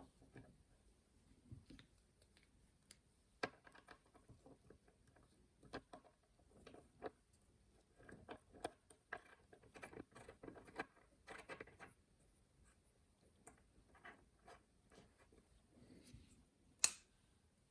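Faint clicks and taps from small parts and tools being handled while reassembling a Haenel 310 air rifle. The clicks are busiest in the middle, with one sharp click near the end.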